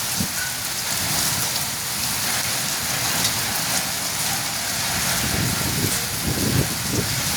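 Heavy rain falling, a dense steady hiss, with low rumbles about five to seven seconds in.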